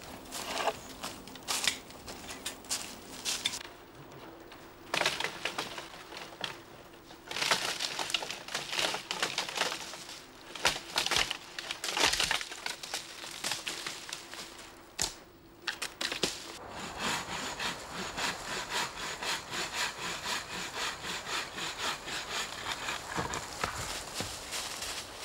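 Dry leaves crunching and twigs snapping underfoot and among branches, as people move through a wood. The sharp cracks come irregularly at first, then settle about two-thirds of the way in into a steady walking rhythm of crunching footsteps, about two a second.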